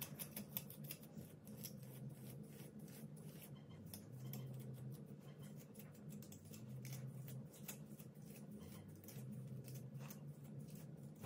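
Comb raking through coily natural hair, faint quick repeated scratchy strokes as it detangles hair left uncombed for months.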